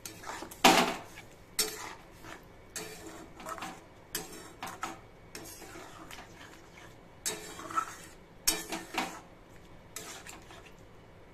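Metal spatula stirring thick oats-and-vegetable khichdi in a metal kadai, scraping and clinking against the pan in irregular strokes, the loudest about a second in.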